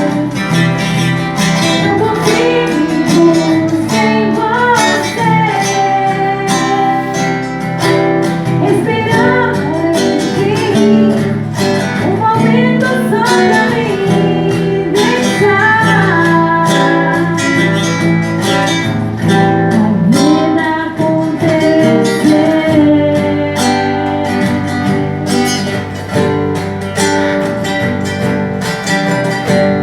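Music: a voice singing over strummed acoustic guitar.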